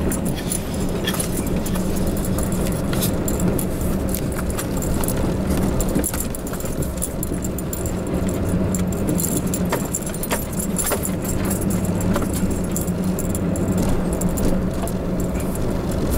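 A vehicle driving slowly over a rough, muddy dirt track, heard from inside the cab: a steady engine and road hum with frequent small rattles and jangling clicks as the cab bounces over the ruts.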